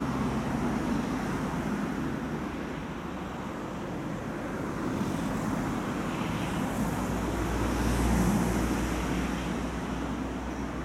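Steady rumble and hiss of road traffic, growing louder about eight seconds in as a vehicle passes.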